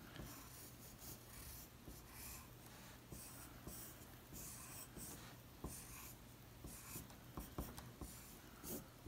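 Faint pencil strokes on paper: a graphite pencil sketching short scratchy lines in repeated strokes. A low steady hum sits underneath.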